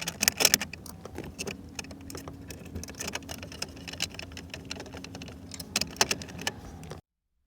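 Scattered clicks and light knocks of hands handling plastic and metal parts, as a cover is fitted back onto an aftermarket steering wheel. The sound cuts off abruptly near the end.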